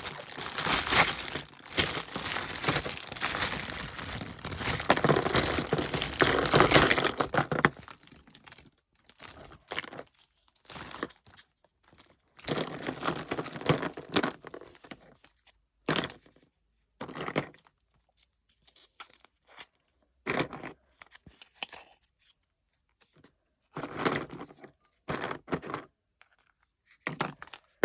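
Packaging being crinkled and torn open, a dense crackle for the first seven seconds or so, then short separate bursts of crinkling with silent gaps between them.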